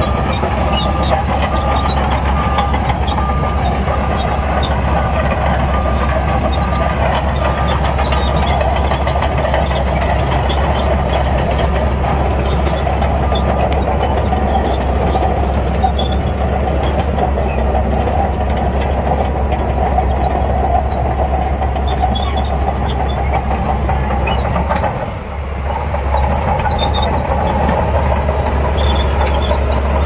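Bulldozer diesel engine running steadily under load while pushing sand, with a brief drop about 25 seconds in.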